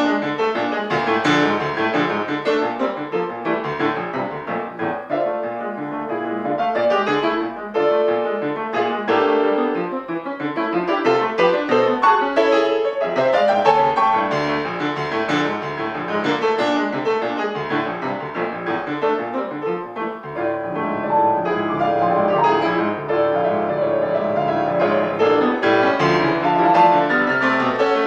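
Concert grand piano played solo: a dense, continuous classical passage with many notes sounding together, loud throughout.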